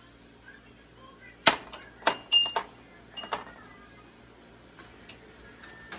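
Glass canning jar clinking against a metal jar lifter and set down on a glass-top stove: a handful of sharp clinks and knocks starting about a second and a half in, one with a brief glassy ring.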